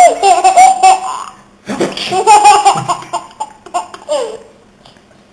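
A baby laughing hard in long, loud belly laughs, two main fits over the first three seconds, then a few shorter giggles that die away about four seconds in.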